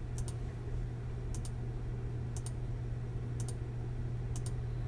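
Computer mouse button clicked five times, about once a second, each a quick double click of press and release, rolling the dice again and again on a dice-roller program. A steady low hum runs underneath.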